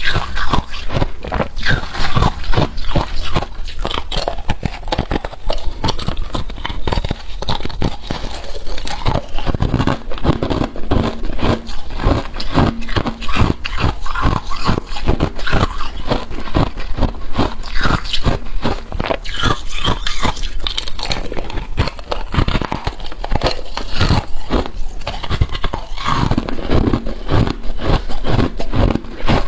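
Close-miked freezer frost crunching and scraping: a dense, unbroken run of crisp crackles and squeaks, many a second.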